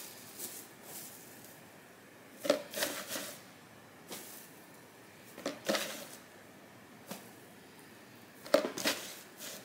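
Dry sphagnum moss being handled in a clear plastic cup: soft crackling rustles in three short bursts a few seconds apart, with a few faint ticks between them.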